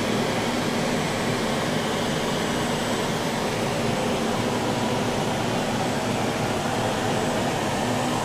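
Steady hiss and low hum of running machinery and air in a machine shop, with a faint low steady tone in it.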